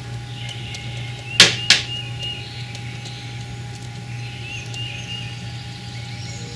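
Pileated woodpecker striking an old pine log with its bill while foraging for insects: two loud knocks about a third of a second apart.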